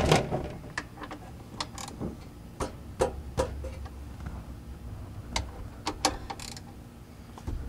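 A socket ratchet clicking in short, irregular runs as the oil drain plug is worked loose.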